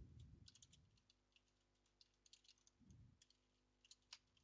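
Faint computer keyboard typing: short runs of key clicks with pauses between them.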